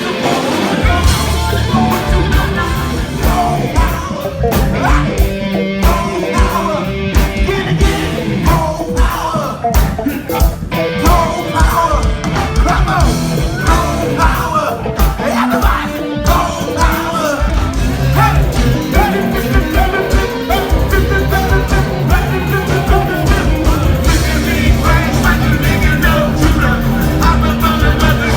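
Live funk band playing loud, with lead and backing vocals and shouts over guitar, drums and a heavy bass line that fills out about two-thirds of the way in.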